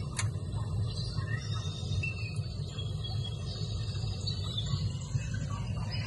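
Steady low hum with an African grey parrot's faint, scattered high chirps as it plays in its cage, and one sharp click about a fifth of a second in.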